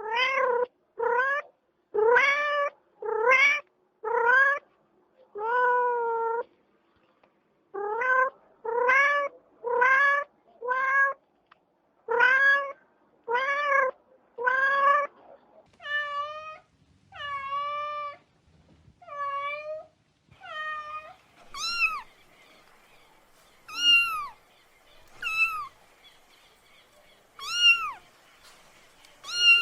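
A cat meowing over and over: short rising meows about one a second for the first half. These are followed by higher, thinner kitten mews spaced a couple of seconds apart, each falling in pitch at the end.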